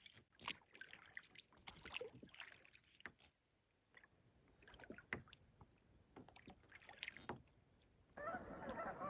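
Faint, irregular splashes and drips of a kayak paddle in calm water. About a second before the end, geese start honking.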